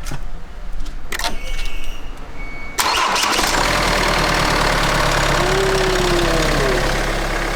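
A car engine being jump-started off a portable jump starter on its weak battery: a few clicks, then about three seconds in the engine starts abruptly and settles into a steady idle.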